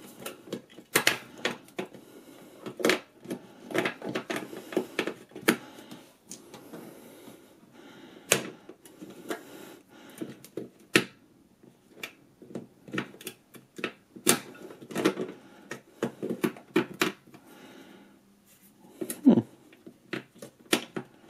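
Irregular sharp clicks and rattles of AAA batteries being handled and pressed into a plastic battery compartment, one battery not seating easily.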